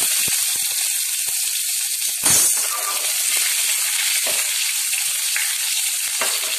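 Small onions sizzling steadily in hot oil in a stainless steel pan. A knock about two seconds in, and lighter ones later, as the pan is moved on the burner.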